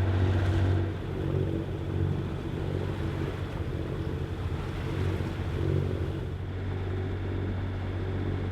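A sailboat's inboard engine running steadily under way: a low, even drone with a steady hiss above it.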